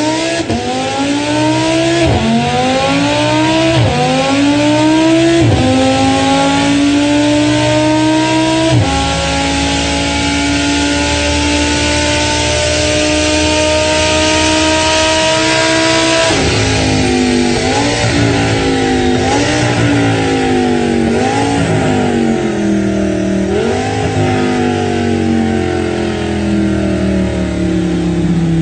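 Formula 1 V10 engine at full throttle, its high-pitched note climbing and dropping back at each of four upshifts, then held near the top for several seconds. About sixteen seconds in the pitch falls sharply into a series of quick throttle blips on the downshifts, then sinks slowly as the engine winds down.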